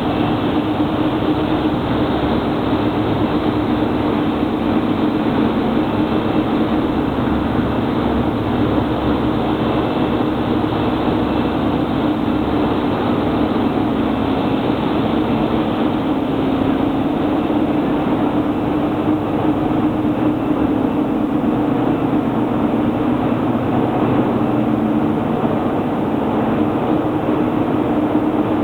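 Steady, loud running noise of aluminium rod casting and rolling line machinery, with a strong low hum that wavers slightly in pitch.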